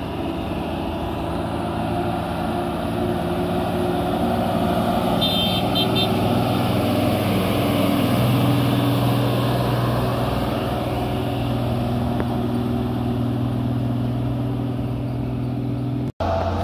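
Heavy truck engine running steadily under load, its pitch stepping up about eight seconds in. A brief run of short high beeps sounds about five seconds in.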